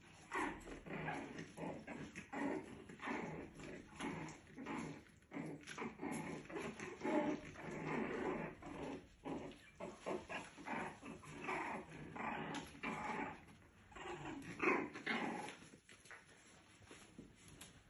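Two puppies about four and a half weeks old play-fighting, making a fast run of short growls that dies down near the end.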